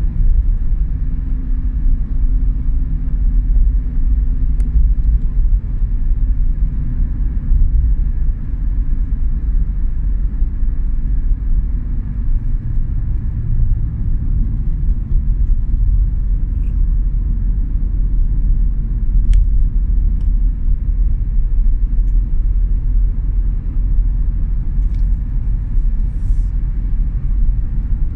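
A car being driven, with a steady low rumble of road and engine noise.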